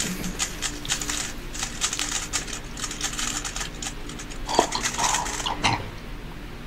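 Rapid plastic clicks and clacks of a Rubik's speedcube being turned and handled, with a few louder knocks near the end before it stops.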